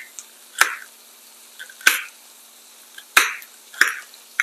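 Kitchen knife chopping sliced cabbage on a cutting board: six sharp knife strikes about a second apart, each with a short crunch as the blade goes through the cabbage.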